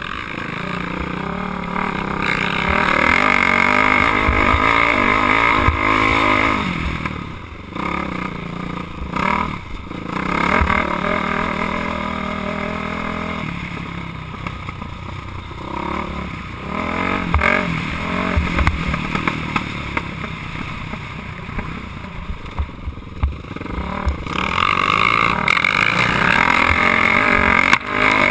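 KTM dirt bike engine revving up hard and backing off again and again, with short drops in revs between pulls. Knocks and clatter come from the rough track, heard through a helmet-mounted camera.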